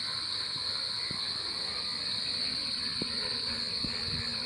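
Steady, high-pitched chorus of night insects, one unbroken shrill tone, with a few faint knocks.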